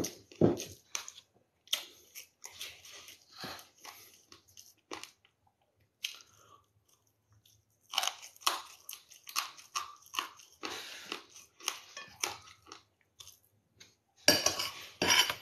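Close-up biting and chewing of crunchy food, with crisp crunches in quick bursts. The chewing pauses for about two seconds midway, and there is a louder burst of noise near the end.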